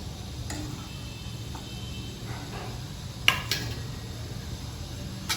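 Butter melting in a pan on the stove: a steady low hum with a few light clicks and knocks, the sharpest about three seconds in.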